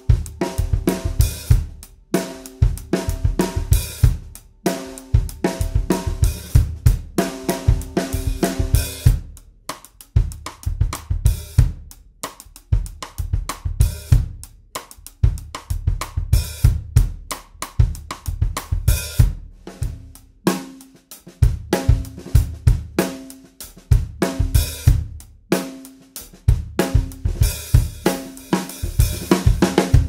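Pearl Session Studio Select 14x5.5-inch birch-mahogany snare drum played in drum-kit grooves with kick drum and hi-hat, in phrases of a couple of seconds with short gaps, each snare hit ringing with a clear tone. For a stretch in the middle the snare is played as cross-stick rim clicks.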